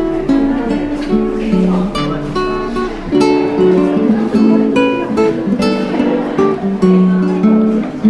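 Background music on acoustic guitar: plucked notes and strummed chords with a steady pulse.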